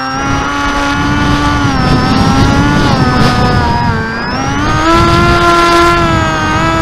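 Electric motor and propeller of a Teksumo RC flying wing whining under power, with air rushing past. The pitch shifts with the throttle: it sags about four seconds in, then climbs again.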